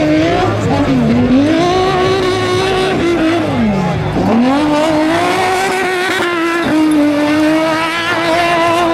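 Car engine revving hard during donuts. The revs are held high, dropping twice and climbing back, most deeply about four seconds in.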